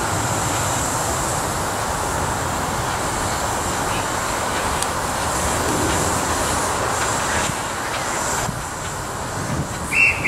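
Miniature steam locomotives running slowly along the track, with a steady hiss of steam escaping around the cylinders and wheels. Two short high peeps near the end.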